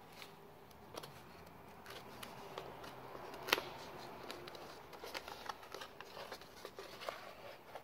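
Faint handling noise as a laptop screen panel with glued-on cardboard is moved about: scattered small clicks and rustles, with one sharper click about three and a half seconds in.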